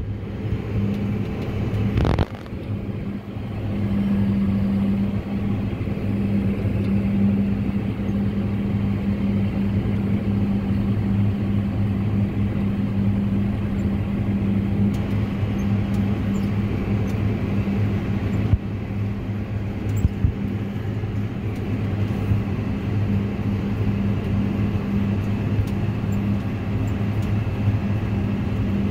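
Tractor engine running steadily under load, heard from inside the cab as a deep, even hum, a little quieter at first and rising about four seconds in. A sharp knock sounds about two seconds in, and a few more knocks come near the middle.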